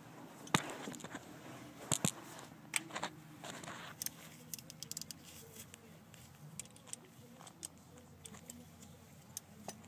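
Scattered light metallic clicks and clinks of hand tools being handled, with several sharper ones in the first four seconds and fainter ticks after.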